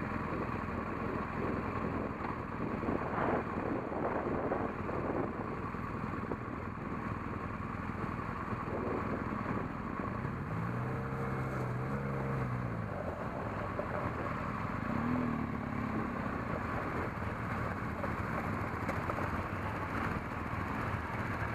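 BMW R 1200 GS LC boxer-twin motorcycle heard from the bike itself, running at low speed on a gravel road with a steady mix of engine, tyre and wind noise. About halfway through, the engine note rises and falls once.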